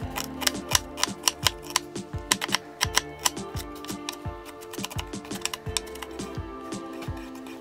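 Knife finely chopping onions on a chopping board in quick strikes, about three to four a second, over background music with held notes.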